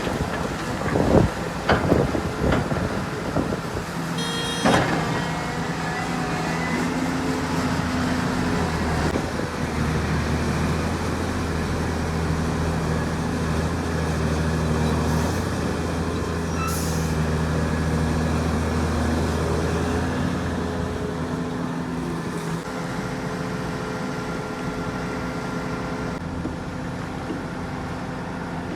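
Heavy diesel engine of earthmoving machinery running steadily, with a few knocks in the first few seconds.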